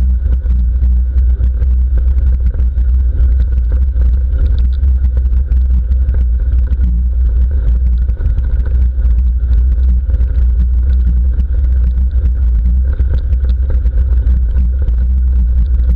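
Mountain bike riding fast down a wet gravel track, heard through a handlebar-mounted GoPro Hero3: a loud, steady low rumble of wind and tyres, with faint scattered ticks.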